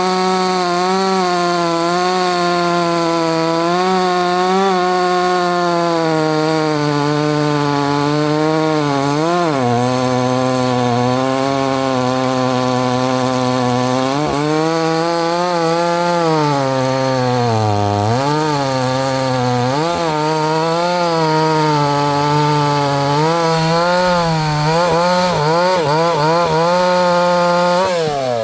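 68 cc two-stroke chainsaw held at full throttle while cutting wood, its engine note sagging several times as the chain bogs down in the cut and then picking back up.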